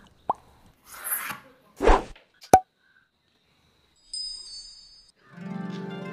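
A string of short edited-in sound effects: a few quick pops and plops with a sharp thump in the first three seconds, then a high, sparkling chime about four seconds in. Plucked-string music, harp-like, starts near the end.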